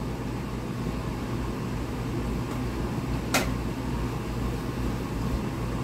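Steady low hum of a running appliance in a kitchen, with one light click about three and a half seconds in.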